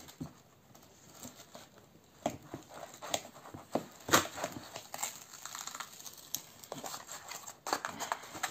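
Plastic packing tape and wrapping being peeled and torn off a small parcel: irregular crinkling and ripping, loudest about four seconds in.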